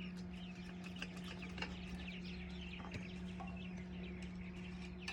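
Small birds chirping steadily with many short, quick calls, over a steady low hum.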